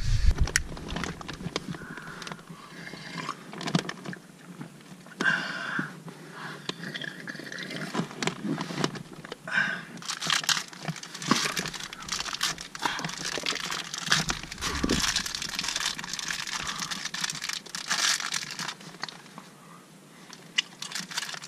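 Irregular crinkling of a food wrapper and rustling of cardboard, with scattered small crunches and clicks, as a person eats and shifts about inside a cardboard box.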